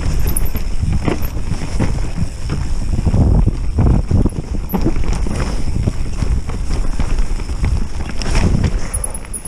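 Mountain bike riding a rough dirt trail: tyres rumbling over the ground with frequent irregular knocks and clatter from the bike, a rattly GoPro mount, and wind on the microphone. The noise eases off in the last second or so.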